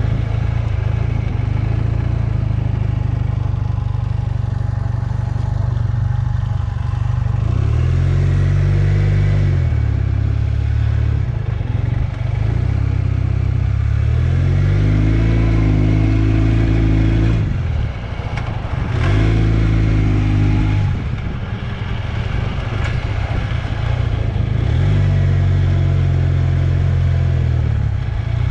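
1978 Honda CB400A Hondamatic's air-cooled parallel-twin engine running on the road, its pitch rising and falling several times as the throttle is opened and closed. It pulls without stutter on the swapped-in set of rebuilt VB24 carburetors.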